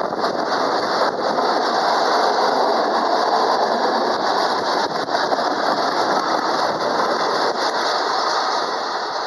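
Container freight train wagons rolling past close by: a steady rush of wheel-on-rail noise with a few faint clicks. It eases off slightly near the end as the last wagon goes by.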